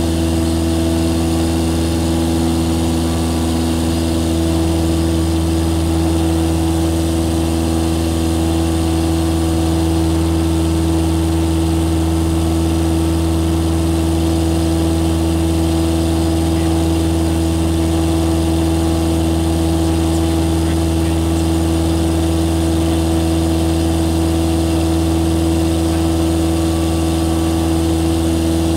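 Cessna 172SP's four-cylinder Lycoming IO-360 engine and two-blade propeller running steadily in flight, heard inside the cockpit as an even drone that does not change in pitch or level.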